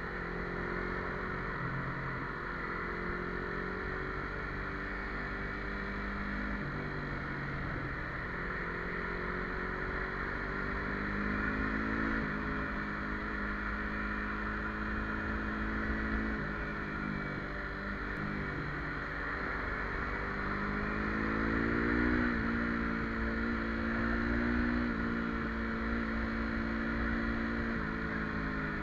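Yamaha MT-25's parallel-twin engine through an open, aftermarket exhaust, pulling under load on the move. Its pitch climbs as it accelerates and drops back at each gear change, several times, most plainly in the second half.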